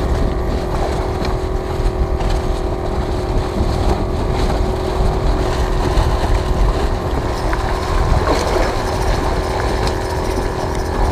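A boat engine running steadily at constant speed, its hum holding one pitch throughout, over a low rumble of wind on the microphone.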